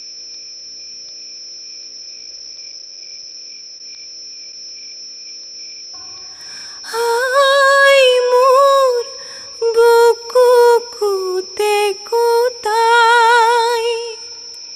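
Insects chirring in a steady high drone. About seven seconds in, a high voice starts singing a wavering, ornamented melody in short phrases with brief pauses, over the chirring.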